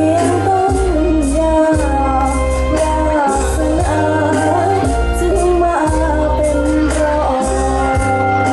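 A young female singer sings a Thai luk thung song into a microphone over backing music with a steady bass and beat.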